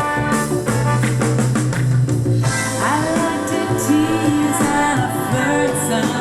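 Pop-rock song played through a Telefunken RA 100 integrated amplifier: guitar and bass with a steady beat, and a sliding melodic line, likely a voice, coming in about halfway through.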